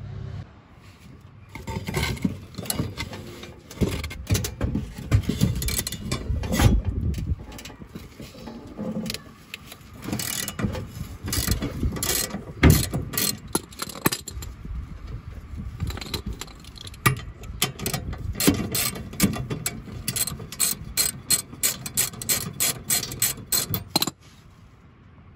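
Socket ratchet wrench clicking in repeated runs as a 5/8-inch riding mower blade bolt is unscrewed. The clicks come faster and closer together in the second half and stop about a second before the end.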